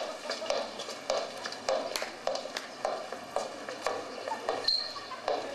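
High-heeled shoes walking on a hard floor, about two steps a second, heard through a hall's loudspeakers.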